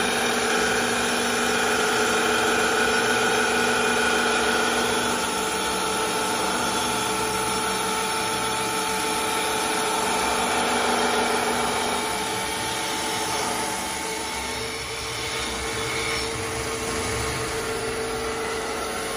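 Automatic CNC wood-turning lathe running, its motors giving several steady whining tones over a rough hiss as a spinning wheel works a wooden spindle turning between centres. The sound eases slightly about three-quarters of the way through.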